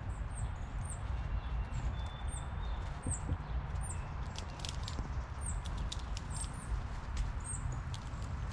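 Steady hiss and patter of light rain, with a small bird's short, high, thin chirp repeating about once a second and a few scattered sharp clicks.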